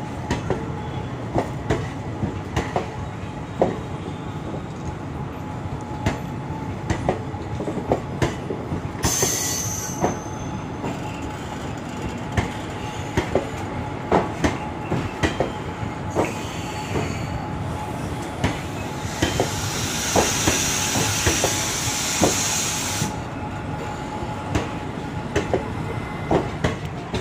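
Passenger coaches of the departing Gujarat Queen express rolling past, the wheels clicking irregularly over rail joints over a steady rumble. A brief high-pitched wheel squeal comes about a third of the way in, and a louder high screech lasts several seconds past the middle.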